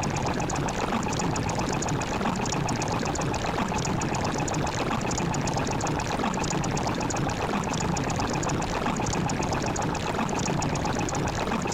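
Steady rushing, splashing water, unbroken and even, with a fine crackle throughout.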